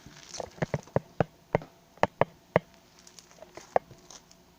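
Slime being squeezed and poked by hand, giving about ten sharp, irregular pops and clicks that are most crowded in the first couple of seconds.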